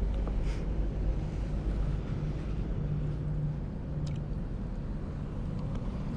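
A steady low mechanical drone with a constant rumble beneath it, and a few faint clicks.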